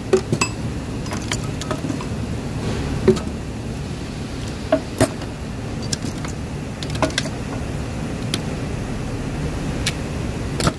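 Metal hand tools (locking pliers, channel locks and pliers) clinking and clanking against each other as they are shifted around in a toolbox drawer, a sharp clink every second or so, over a steady low hum.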